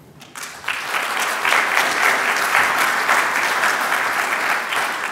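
Audience applauding: the clapping starts a moment in, quickly swells to a full, steady level, and begins to die down near the end.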